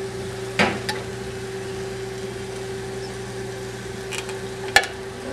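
Steady hum of a running microwave oven that stops at a sharp click near the end, with a few scattered clicks from a hand-crank can opener being worked onto a can.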